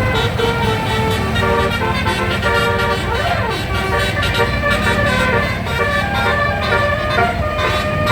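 A 12-note telolet basuri bus horn playing a tune: several held tones sound together and step from note to note, over a low engine rumble.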